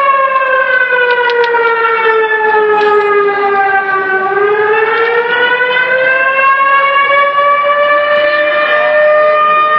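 Civil defence siren wailing loudly: its pitch sinks slowly for about four seconds, then climbs back and holds steady, sounding to mark the New Year just before the fireworks begin.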